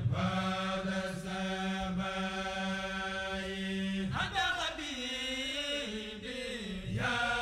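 A single voice chanting, holding one long steady note for about four seconds, then moving through a few shorter notes that slide up and down.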